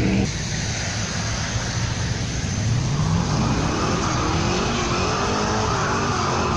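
A car engine revs up about halfway through, followed by a wavering tyre squeal, as in a burnout, over the low rumble of cars driving past.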